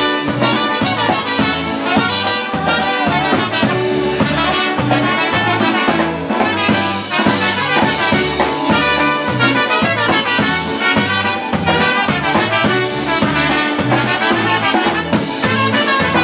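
Live Polish-American polka band playing an instrumental break: two trumpets carry the melody over a steady bass-and-drums beat.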